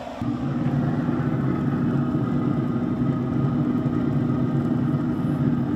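Boat engine running steadily, cutting in abruptly just after the start.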